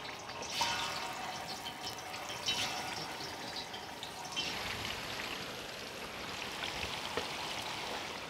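Food sizzling and crackling as it cooks in a pan, growing a little busier about halfway through.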